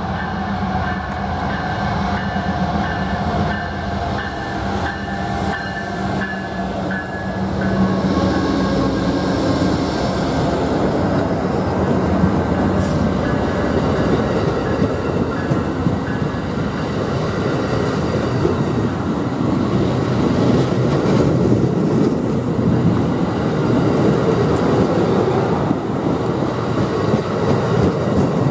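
Amtrak GE P42DC diesel-electric locomotive passing, its engine tones fading over the first several seconds. Then a string of Superliner bilevel passenger cars rolls by with a steady, loud rumble of wheels and clickety-clack over the rail joints.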